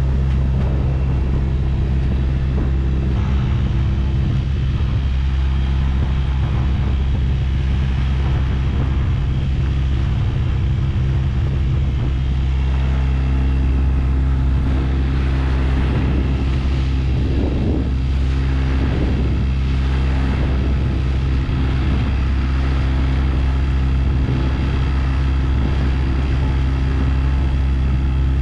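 Catalina 25 sailboat's motor running steadily under way, a constant low hum with no change in speed.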